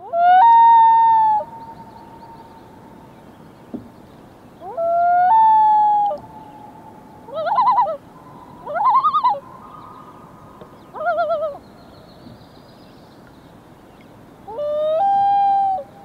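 Common loons calling across a lake. There are three long calls, near the start, about five seconds in and near the end, each rising to a held higher note and trailing a faint echo. Between them come three shorter wavering, quavering calls.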